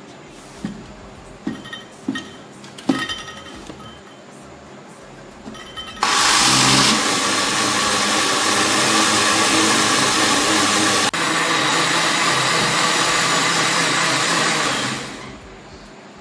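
Countertop electric blender blending pre-soaked rice with water. After a few light clicks and knocks, the motor starts suddenly about six seconds in and runs steadily and loudly, dips for an instant partway through, then winds down near the end.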